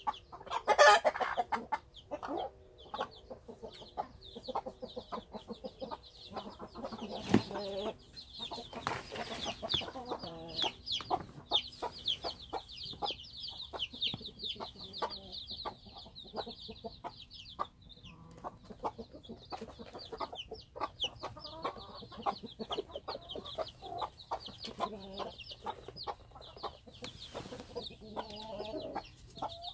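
A brood of chicks peeping almost without pause in quick, high chirps, with mother hens clucking among them. The hen calls are loudest about a second in and again around seven to nine seconds in.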